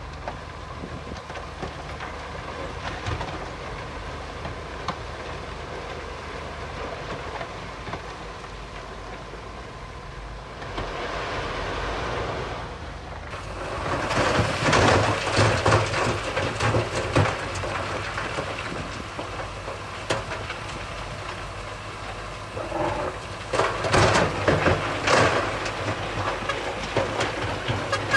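Heavy earthmoving machinery, its diesel engine running steadily, with loud rattling and clattering starting about halfway through and coming again near the end, typical of steel tracks and stone being worked.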